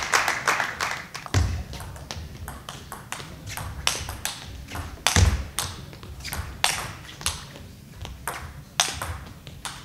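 Table tennis rally: the ball clicking sharply off the table and the rubber-faced bats in an uneven rhythm of quick ticks, with a couple of low thuds.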